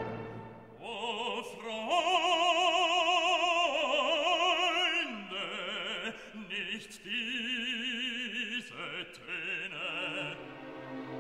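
Background music: an operatic voice sings long held notes with wide vibrato, with a few short breaks between phrases.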